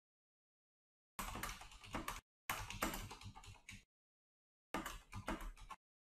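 Computer keyboard being typed on: three runs of quick keystroke clicks, each lasting about a second, with silent gaps between.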